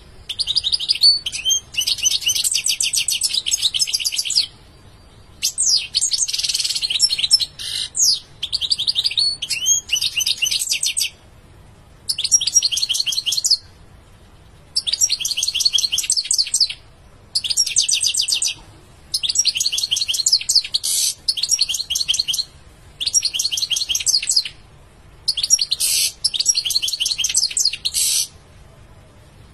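European goldfinch singing: about ten phrases of fast, high-pitched twittering, each one to four seconds long with short pauses between, the song stopping shortly before the end.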